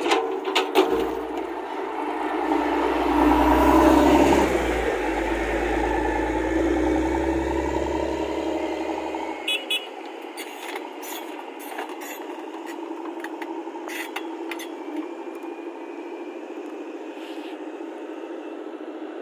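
Diesel engines of a Caterpillar crawler excavator and a motor grader running, the grader's engine loudest as it passes close in the first half with a deep rumble. Afterwards the excavator's engine runs steadily, with scattered sharp knocks and clanks.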